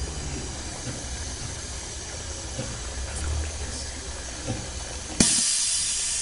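Pneumatic piston liquid filler running through a dispensing shot, a steady low hum and hiss. About five seconds in, a sudden loud hiss of compressed air venting as the air cylinder cycles, ending in a click.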